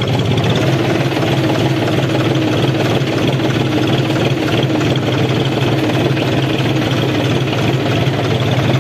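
John Deere tractor's diesel engine running steadily at an even, low speed, with no revving, while the tractor is driven slowly through the water.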